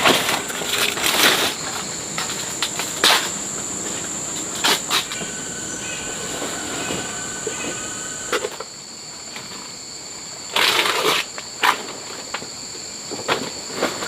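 Insects droning steadily at a high pitch, with short noisy bursts of handling sounds now and then, the longest a little past the middle.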